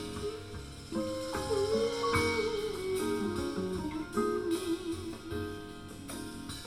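Instrumental music played back through a DIY hybrid 12AU7 valve amplifier and Technics EAS-20F20 loudspeakers, picked up off the speakers by a recorder.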